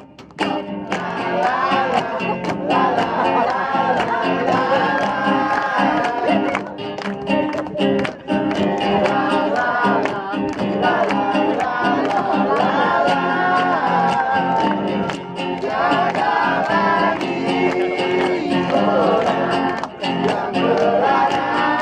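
Background music: a song with singing over plucked guitar and a steady beat.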